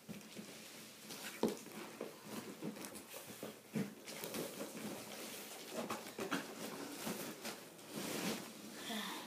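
Large cardboard shipping box being handled: rustling and scraping of cardboard with repeated knocks as the box is tipped over and the boxed hoverboard is worked out of it.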